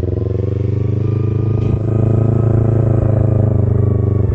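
Kawasaki Ninja 250R's parallel-twin engine running hard through aftermarket headers and exhaust, revs climbing slightly and getting louder about two seconds in, then holding steady.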